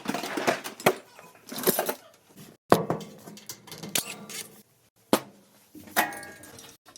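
Hard knocks and clattering of tools and metal dryer panels being handled as a clothes dryer is taken apart, a scattered series of sharp knocks and rattles.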